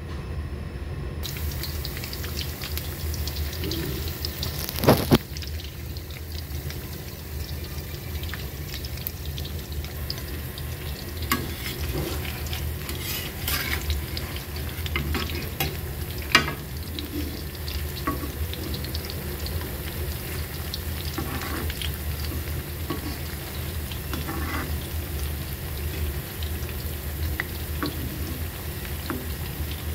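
Potato and onion pakoras deep-frying in hot oil in an iron wok, a steady sizzle over a low hum. A metal spatula knocks against the wok a few times, loudest twice about five seconds in.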